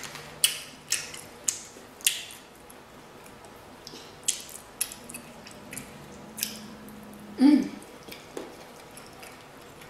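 Close-miked eating: sharp, wet mouth clicks and smacks while chewing pasta, spaced irregularly, with a fork clicking in a plastic takeout bowl. A brief voiced 'mm' comes about seven and a half seconds in.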